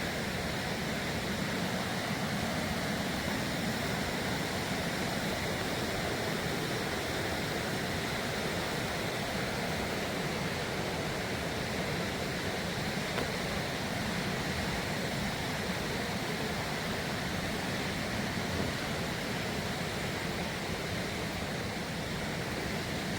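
Steady rushing of flowing water, an even noise with no breaks or changes.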